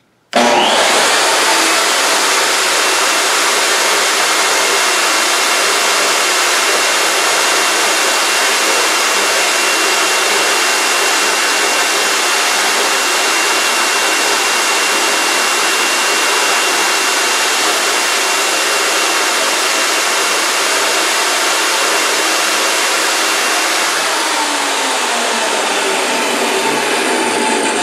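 Ridgid R4516 10-inch, 15-amp jobsite table saw switched on and free-running with no cut, its motor and blade making a loud, steady rush that reads right at 100 dB on a sound level meter. Near the end its pitch begins to fall as it winds down.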